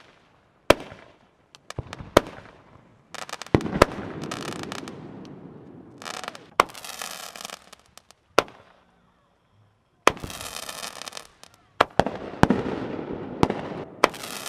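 Consumer aerial fireworks going off: about a dozen sharp bangs as shells and rockets launch and burst overhead. Between them run several long hissing whooshes of sparking rockets climbing.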